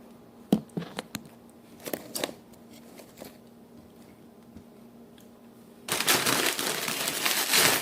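A few light clicks and knocks of things being handled, then about six seconds in, packaging being handled with loud, dense crinkling.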